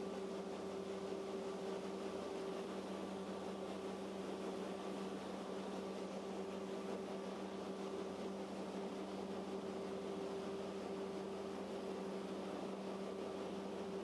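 Paddle-wheel passenger boat's engine running at a steady pace: a constant low hum over an even rushing noise.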